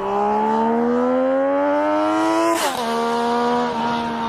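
A vehicle engine accelerating, its pitch rising steadily, then dropping sharply with a click about two and a half seconds in as it shifts up. It then runs on at a steady pitch.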